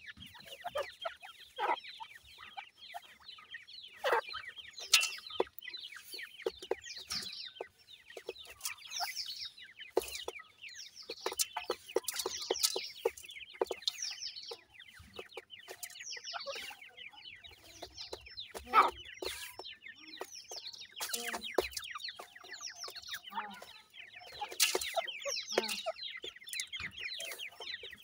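Grey francolin chicks peeping continuously: many quick, high chirps that fall in pitch and overlap, with scattered sharp clicks among them.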